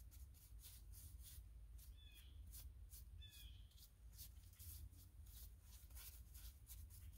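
A bird calls twice, short falling chirps about two and three seconds in, over near silence with faint repeated scratching strokes of a hand tool on a carved wooden post.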